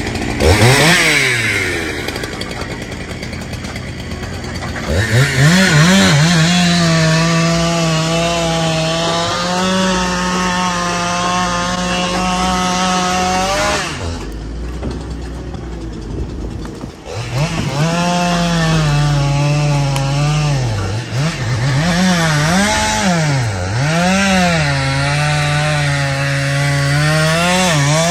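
Two-stroke chainsaw cutting through a pine log: its engine holds a steady pitch under load, then revs up and down between cuts. Near the middle, a few seconds of a lower, deeper engine sound take its place.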